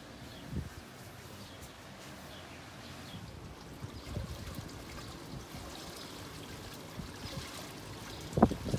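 Swimming-pool water trickling steadily, with a few soft low bumps and a brief louder sound near the end.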